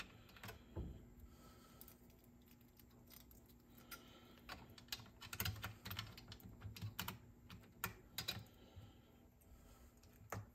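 Light clicks and taps of small metal parts and hand tools as a cassette deck's tape transport is being reassembled, irregular and busiest in the middle. A faint steady hum runs underneath.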